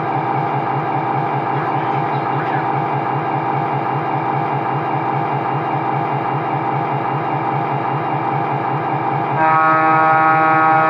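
MTH Protosound 3 digital diesel sound from a USA Trains F-3 model locomotive's speaker: the simulated engine idles with a fast, even throb. About nine seconds in, the locomotive's air horn comes in as a steady held chord over the engine and lasts to the end.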